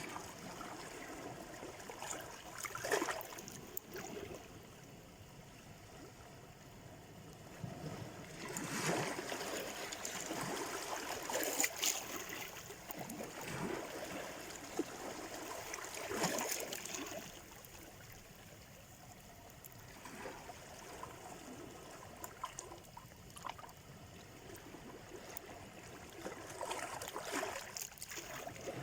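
Small sea waves washing up on the shore. Each surge comes in and draws back, with a wash about three seconds in, a longer spell of waves through the middle, another near the end, and quieter lulls between.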